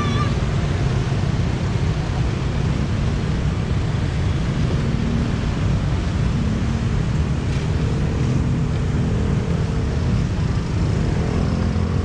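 Steady low rumble of a heavy vehicle running close by, with a faint engine or motor hum. A short musical horn note cuts off right at the start.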